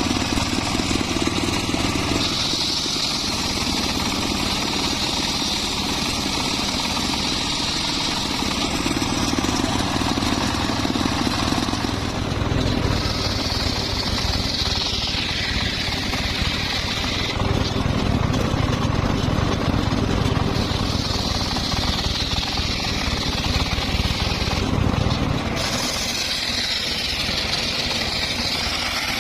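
Circular saw running steadily and cutting teak and mahogany wood in several passes: a high whine rises over the motor's hum as the blade bites, about two seconds in and again a few more times, once sliding down in pitch as the blade is loaded.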